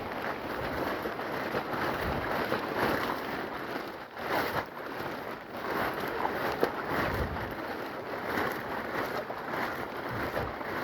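Steady rain in the forest, an even hiss, with wind buffeting the microphone.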